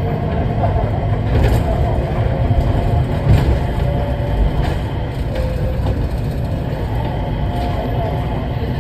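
Riding inside a Changi Airport Skytrain car, a rubber-tyred automated people mover, as it runs along its guideway: a steady low rumble with a few light knocks.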